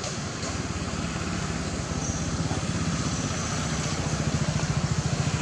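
An engine running steadily with an even low pulse, growing louder from about two seconds in.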